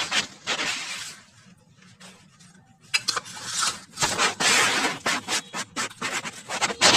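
A spoon stirring batter-coated boiled cauliflower florets in a steel bowl, scraping against the bowl with occasional clinks. The stirring goes in stretches, pausing briefly about two seconds in.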